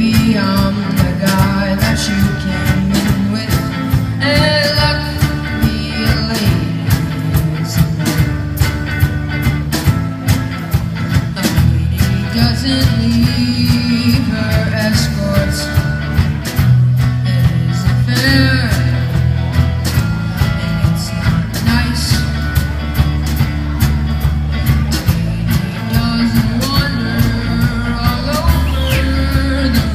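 Live band playing a loud rock-style arrangement on drums, bass guitar and electric guitar, with a steady drum beat under held bass notes.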